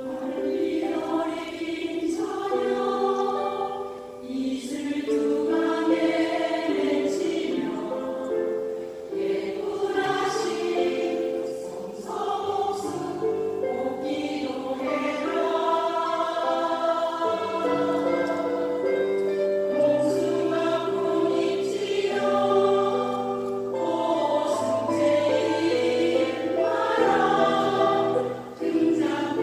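Choir of senior singers singing a song in Korean in sustained, many-voiced chords.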